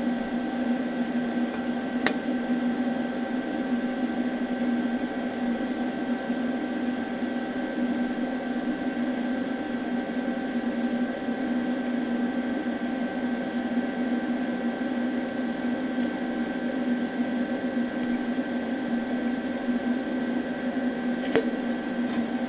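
TIG welding on thin 18-gauge mild steel: a steady hum with a few fixed tones, with a sharp click about two seconds in and another near the end.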